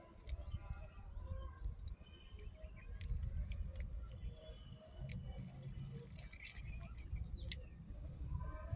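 Budgerigars chirping and chattering in short, broken calls, with scattered sharp clicks over a low rumble.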